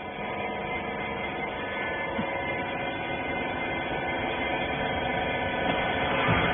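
Steady electric machine hum, many steady tones together, growing a little louder toward the end: the electric motor and hydraulic pump of a rag baler running.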